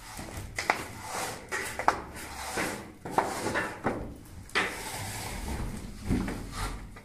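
Irregular scraping and rubbing strokes with a few sharp clicks: wet gypsum plaster being pressed and wiped by hand along a straightedge on the edge of a ceiling beam.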